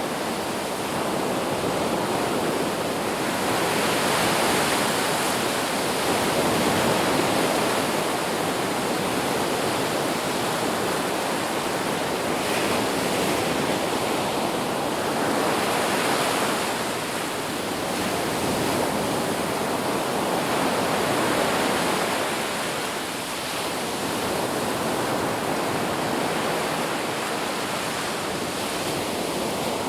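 Ocean waves breaking and washing on a beach, a steady surf hiss that swells and eases every few seconds.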